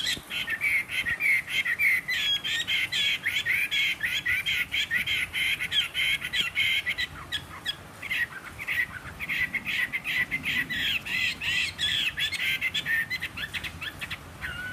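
Caged Chinese hwamei (melodious laughing thrush) singing a fast, continuous run of varied notes, with a short lull about eight seconds in; the owner says the bird is slightly hoarse.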